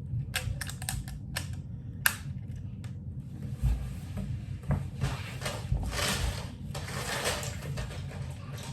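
Plastic Lego bricks clicking and clattering as they are handled and pressed together, with separate sharp clicks at first, then a longer spell of denser rattling and rustling from about three and a half seconds in.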